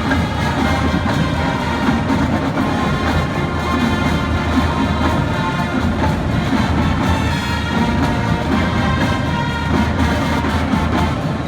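Marching band playing, with brass instruments holding full chords.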